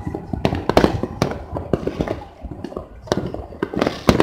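New Year fireworks and firecrackers going off across a city: irregular bangs and cracks at many distances, thickest about a second in and again near the end.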